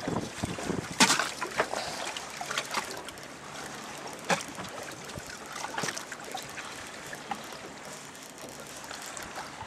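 Sea water splashing and lapping around a small boat, with a few sharper irregular splashes over a steady watery wash.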